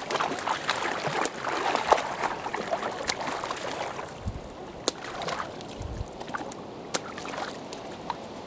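Shallow river water splashing and trickling, with many small sharp splashes that are busiest in the first few seconds and thin out later.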